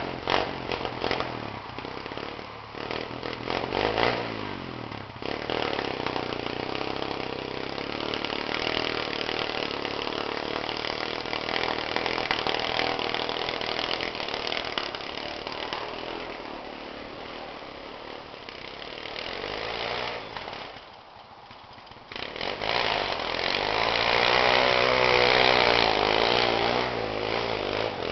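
Pit bike's small single-cylinder engine revving up and down as it is ridden. The sound drops away sharply for about a second roughly three-quarters of the way through, then comes back louder, its pitch rising and falling.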